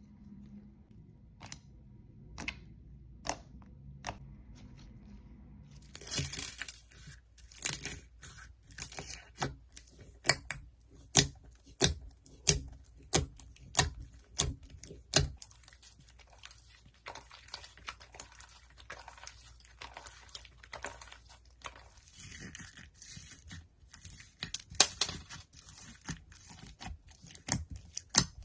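Fingers squishing and poking thick white slime in a clear bowl, making rapid sharp crackling pops and sticky snaps in bunches. Before that come only a few soft clicks as clear pink slime is stretched out of its tub.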